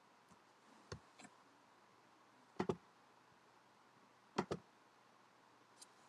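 Computer mouse clicking while editing a CAD sketch: a few single clicks and two quick double clicks, about two and a half and four and a half seconds in.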